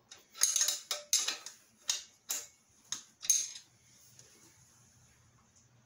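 Caster wheel and loose steel hardware being handled: a quick run of about seven sharp clicks and rattles over three seconds, then quiet.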